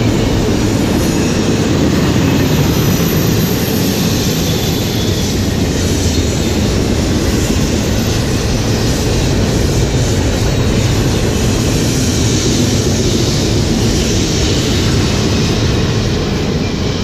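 Double-stack intermodal container train's well cars rolling past on the rails: a loud, steady rumble of steel wheels on track.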